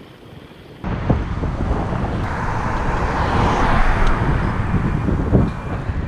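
Wind rushing over a head-mounted action camera's microphone while riding along the road, starting suddenly about a second in and staying loud, with a few short knocks from bumps.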